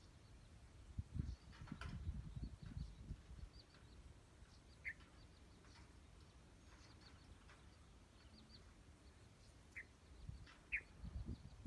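Quiet background with faint, short bird chirps now and then, and low rumbling bumps from about a second in to about three seconds, and again near the end.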